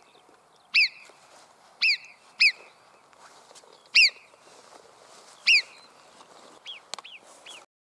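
Alpine marmot whistles: five sharp, high-pitched calls about a second apart, then three shorter, fainter ones near the end, over a faint airy hiss. The sound cuts off abruptly just before the end.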